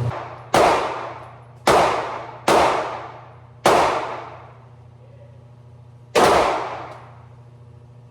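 Five gunshots fired at an uneven pace, the first four within about three seconds and the last about two and a half seconds later. Each is a sharp crack that rings and echoes away over about a second.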